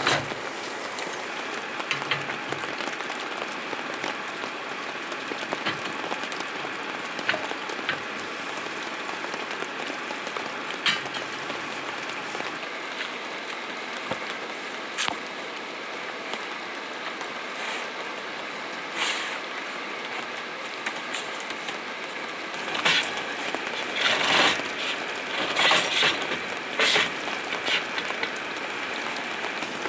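Steady rain falling, an even hiss, with scattered clicks and a run of louder clattering knocks near the end.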